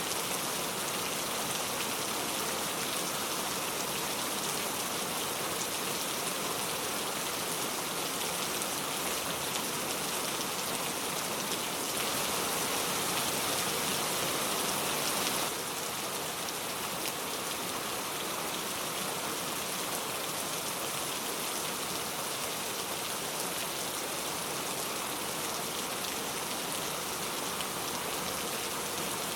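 Heavy rain falling steadily, an even hiss of drops. It is a little louder for a few seconds around the middle and drops back suddenly.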